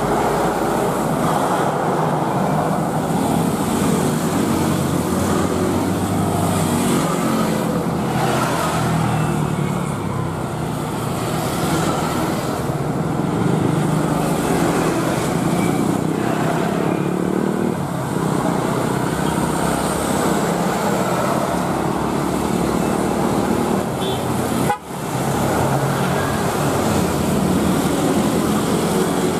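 Steady jet engine noise from a Citilink Airbus A320-214's CFM56 turbofans as the airliner moves along the wet runway. The sound breaks off for a moment near the end, then picks up again.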